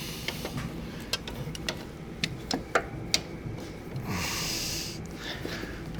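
A series of sharp clicks and knocks, like hand tools being handled, then about a second of breathy hiss near the end.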